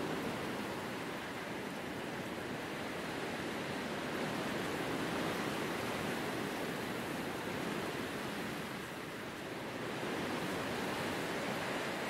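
Wind rushing steadily through grass and a bare tree, easing slightly about nine seconds in.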